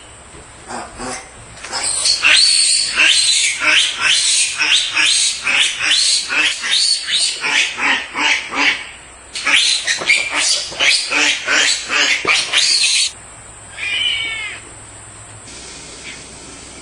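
Piglet squealing in a rapid run of short, high calls, with a brief break about nine seconds in and one more call a second after the run stops.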